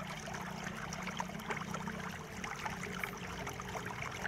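Steady low hum and hiss of background room noise, with faint scattered small ticks.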